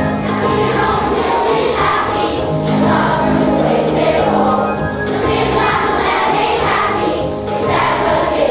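A large children's choir singing a song, many voices together, steady and continuous.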